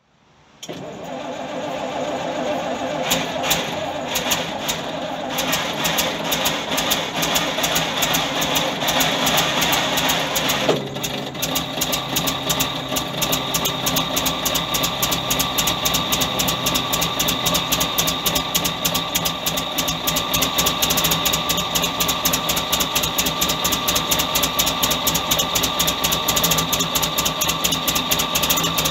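Rolls-Royce B6 4.2-litre straight-six engine of a Daimler Ferret running. About eleven seconds in it changes down to a steady, evenly pulsing idle. It is running rich after years in storage: perished carburettor diaphragms have let petrol pool in the manifold.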